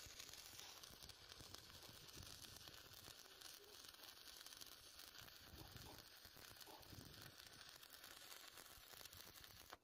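Stick-welding arc with a 7018 rod on a steel beam, crackling and sizzling steadily as the bead is run. It stops suddenly at the end when the arc is broken.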